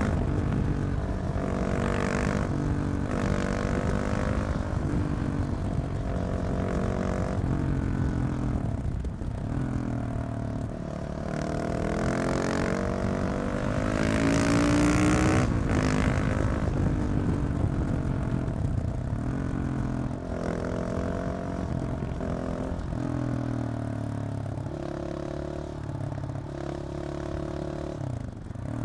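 A KTM 690 SMC R's single-cylinder engine running through a decatted LeoVince exhaust, repeatedly revving up and dropping back as it shifts through the gears. The pitch rises and falls several times, and the engine settles to a lower, steadier note in the last few seconds.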